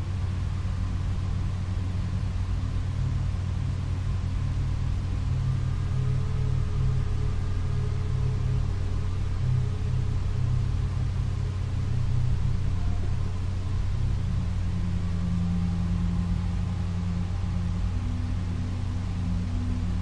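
A low, steady rumbling drone with faint, slowly wavering tones above it: an eerie ambient sound bed.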